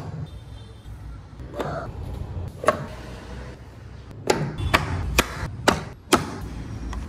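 Wooden doors of a hand-carved model car knocking and clicking as they are opened, taken off and handled. A soft knock and one sharp tap, then a quick run of five sharp wooden clicks from about four seconds in.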